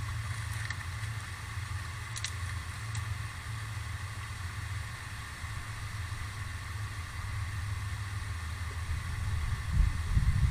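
A steady low hum, with a few faint clicks in the first three seconds and gusts of wind buffeting the microphone near the end.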